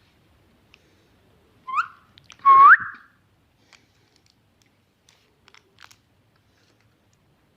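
Two rising whistles, a short one and then a longer, louder one about a second later, followed by a few faint clicks.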